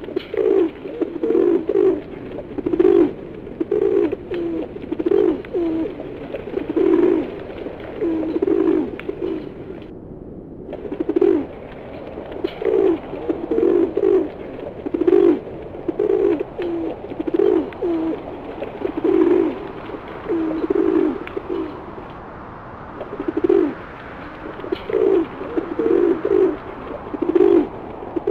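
A flock of feral pigeons cooing, one low coo following another about once a second.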